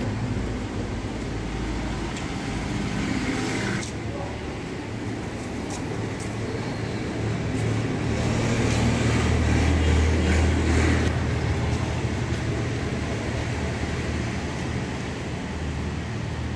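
Street traffic: a low motor-vehicle rumble that grows louder around the middle and fades again, over steady outdoor noise with a few faint clicks.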